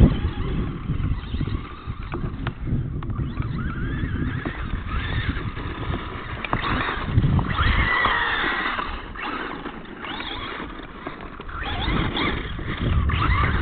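Radio-controlled monster truck's motor whining, rising and falling in pitch as it is throttled, over a steady low rumble.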